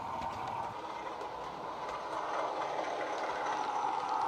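Model Class 33 diesel locomotive's DCC sound decoder playing a Coastal Class 33 engine sound file through a 27mm bass-enhanced speaker, mixed with the rumble of the model's wheels on the track. The sound grows louder over the second half as the locomotive comes round toward the microphone.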